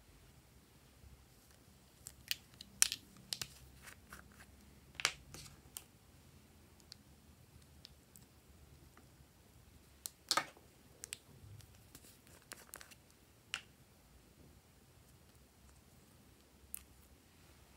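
A plastic spatula scraping and tapping inside a small plastic cosmetic jar as its cream is scooped out: scattered quiet clicks and short scrapes, the loudest about 5 s and about 10 s in.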